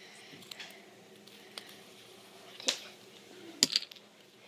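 Plastic fidget spinners being handled: a few scattered clicks and knocks, the sharpest about two and a half seconds in and a quick run of clicks near the end.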